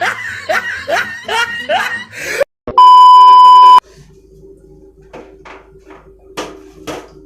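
Rhythmic laughter, then after a brief gap a loud, steady, single-pitched beep that lasts about a second and cuts off abruptly, like an edited-in censor bleep. Faint clicks and a low hum follow.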